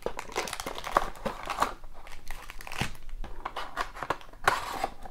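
A cardboard trading-card hobby box being torn open by hand, with irregular crackling, tearing and crinkling as the perforated lid and flaps are pulled back and the foil-wrapped packs inside are handled.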